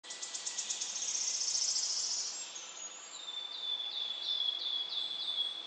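High-pitched chirping: a fast trill for the first two seconds or so, then a run of short falling chirps, about three a second.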